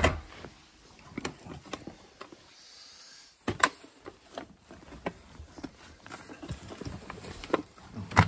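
Rummaging through stored household items: scattered irregular knocks, clicks and scrapes as wooden and plastic objects are handled and shifted, with sharper knocks at the start, about three and a half seconds in and near the end.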